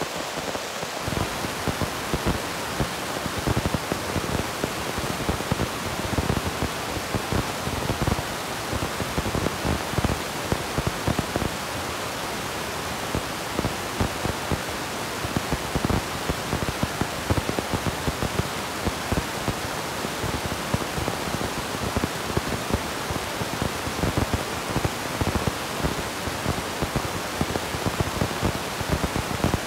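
Steady rushing hiss with an uneven low rumble underneath, unchanging throughout.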